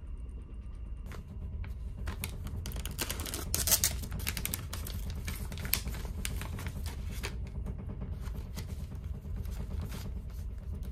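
Crinkling and rustling of a drip-coffee sachet being handled and opened, a dense run of crackles that is loudest about four seconds in. Underneath runs the steady low hum of the ferry's engines.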